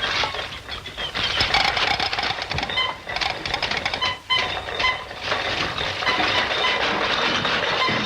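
Fast, busy mechanical clattering and rattling, with short whistle-like tones in the second half and a brief break just after the middle.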